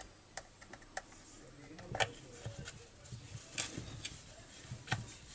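Hand screwdriver turning small screws into the oil pump mount of a chainsaw: a few faint, scattered metal clicks and scrapes.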